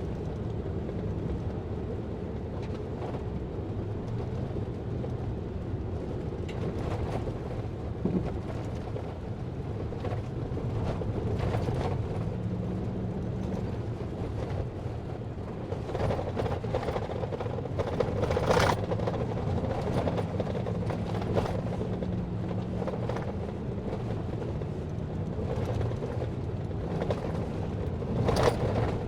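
A vehicle engine running steadily while driving, with scattered knocks and rattles.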